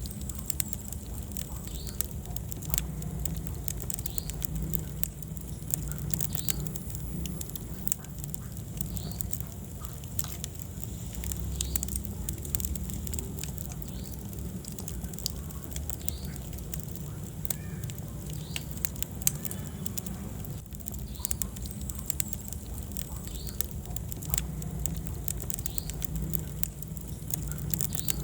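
Wood fire burning in a fireplace: frequent crackles and small pops over a steady low rumble of the flames.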